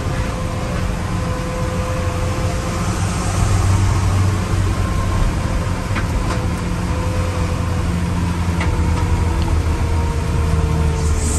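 Truck engine running steadily with road noise while driving, under a thin whine that drops slightly in pitch near the end. A few light clicks come through.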